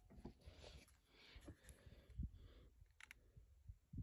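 Near silence, with a few faint small clicks, the clearest about two seconds in.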